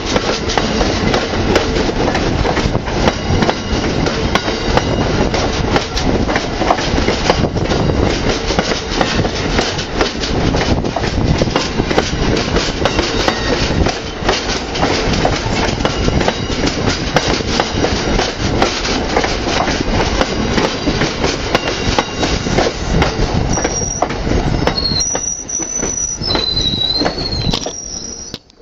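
Amtrak passenger train cars rolling past close by: a steady heavy rumble with clatter from the wheels. Near the end come high-pitched wheel squeals that shift in pitch, and then the sound cuts off suddenly.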